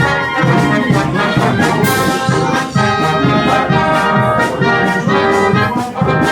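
Live brass band playing patriotic music, brass over a steady beat.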